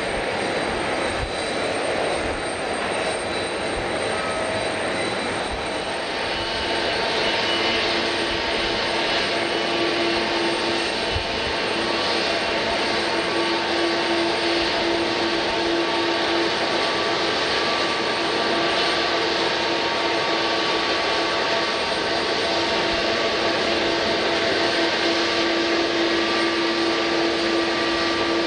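Jet airliner engines running: a steady rush of noise with several held whining tones. It grows a little louder about six seconds in.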